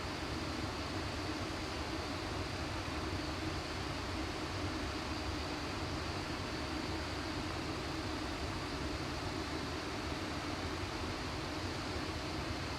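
Steady flight-deck noise of a Boeing 737 in flight: an even rush of air and engine hum, with a faint steady high tone.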